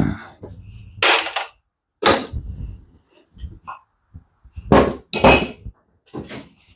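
Metal parts of a Mazda 12A rotary engine clinking and scraping in about four short bursts as it is taken apart.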